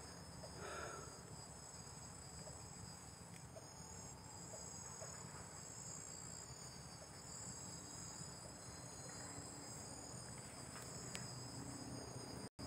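Faint, steady, high-pitched chirring of insects in dense vegetation, with a low steady rumble underneath.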